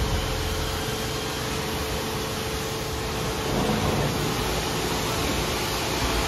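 Istobal M'Start rollover car wash machine running: a steady hiss of water and machinery with a low hum and a faint steady tone.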